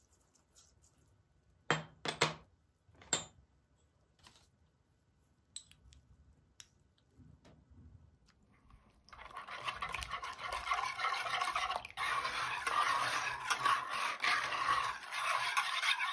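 Wire whisk beating warm milk, water, sugar and fresh yeast in a large bowl, a rapid steady swishing with fine clinks against the bowl that starts about nine seconds in. Before it, a few sharp clinks of small crockery and a spoon.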